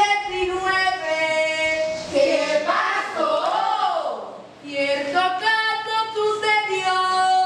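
A high voice singing long held notes, with a wavering, gliding passage in the middle.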